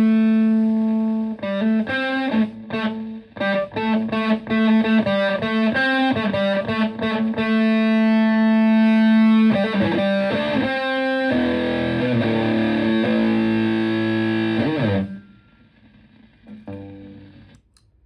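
Electric guitar through a Tone Bender MKI-style fuzz pedal and a Fender Twin Reverb-type amp, heavily distorted. A sustained fuzzy note gives way to a quick run of single picked notes, then a held note and a thick held chord that is cut off about fifteen seconds in, followed by a few faint notes.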